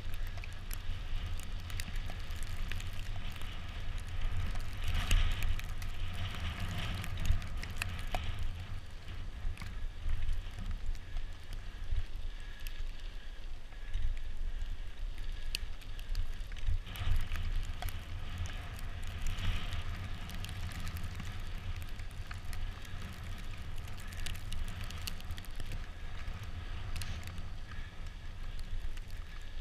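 Bicycle riding over a snow-covered road: a steady noise of tyres on packed snow with a low, gusty rumble of wind on the microphone and scattered sharp clicks and rattles.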